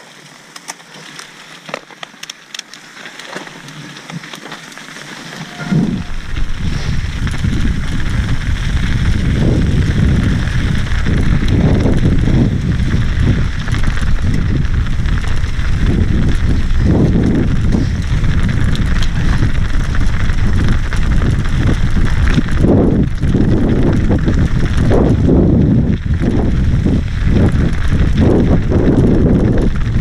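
Helmet-camera ride sound of a Santa Cruz Bronson mountain bike descending rocky singletrack: quiet with scattered clicks at first, then from about six seconds in a loud, steady rumble of wind on the microphone and tyres and bike rattling over the rough trail, surging with the bumps.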